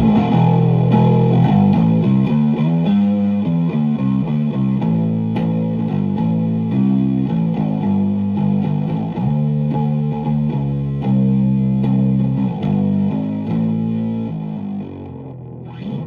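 Electric bass guitar played through an Orange Crush Bass 50 combo with its gain engaged and blended in, giving a gritty, overdriven tone: a riff of quickly changing notes that dies away near the end.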